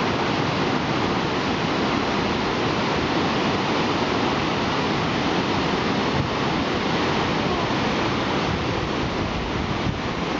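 Whitewater rapids rushing through a boulder-choked river channel: a steady, even rush of churning water.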